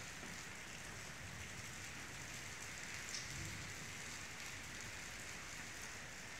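Rain falling steadily, an even hiss with a few faint drops ticking.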